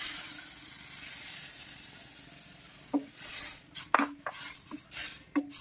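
Coconut milk poured into a hot pan of sautéed chicken, hissing and sizzling as it lands, the hiss fading over about three seconds. Then a wooden spoon stirring, with short scrapes and knocks against the metal pan.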